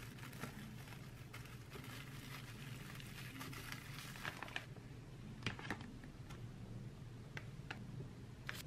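Clear plastic wrap crinkling as it is folded tightly around slices of cake. The crinkling is dense for about the first four and a half seconds, then thins to a few scattered crackles and taps.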